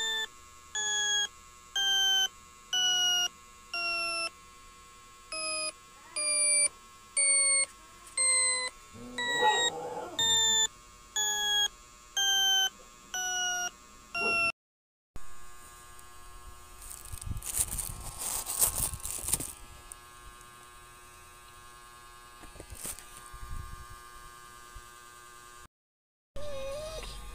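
A chime-like electronic tune of short, evenly spaced notes, about two a second, stepping down in pitch, with a brief dog whine about ten seconds in. After a cut, rustling and handling noise, then a dog whining near the end.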